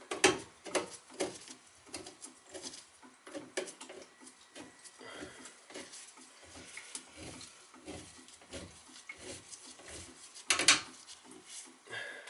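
Hand work with metal tools on a copper water pipe: short scraping and clicking strokes about two a second, with a sharper metal clank about ten and a half seconds in.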